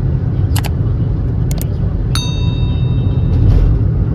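Steady low road and engine rumble inside a moving taxi's cabin. There are a couple of short sharp clicks, then a bright chime about two seconds in.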